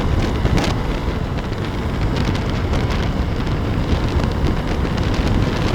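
Wind buffeting the rider's microphone over the running motorcycle and road noise while riding: a loud, steady rushing noise with a heavy low rumble.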